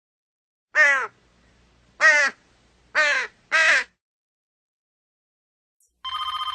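A crow cawing four times, harsh short calls with the last two close together. Near the end a telephone bell starts ringing.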